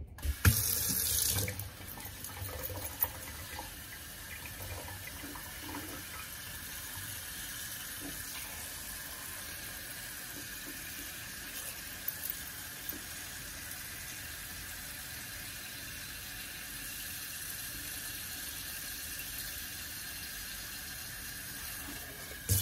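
Kitchen faucet running steadily, its stream pouring into a saucepan of chopped vegetables and filling it with water. The rush of water is louder for about the first second.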